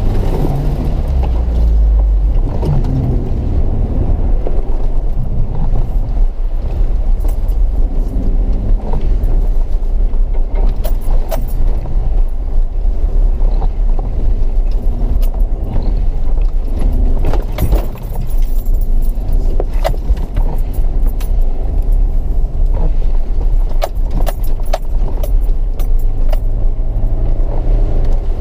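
Off-road vehicle driving slowly over a wet, rutted dirt track: a steady low engine rumble, with water splashing up around it at the start and frequent sharp clicks and knocks from the body and loose items as it bumps along.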